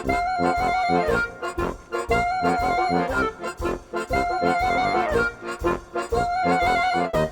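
Background music: an upbeat accordion-led tune with a steady beat, its melody phrase repeating about every two seconds.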